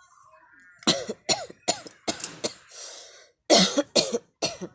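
A person coughing deliberately and hard in two fits: about five harsh coughs, a breath drawn in, then three more.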